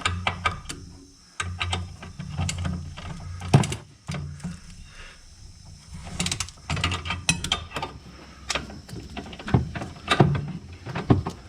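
Irregular metallic clicks and knocks of a ratcheting wrench being fitted onto and worked on a rear sway bar link nut.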